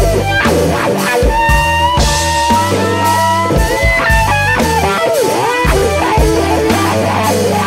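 Blues band instrumental passage: an electric guitar lead plays bent, sliding notes over bass and a drum kit.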